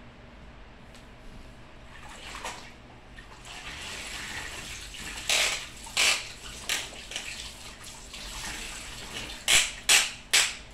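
Water sloshing and splashing as a mop is worked in a plastic bucket of water, with a few sharp splashes five to seven seconds in and three quick ones near the end.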